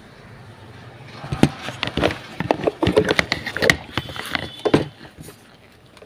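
Handling noise from an electric kettle's base: a run of sharp clicks, knocks and scrapes of plastic and metal parts as the cleaned power socket is pushed back onto its pin, starting about a second in and ending about a second before the end.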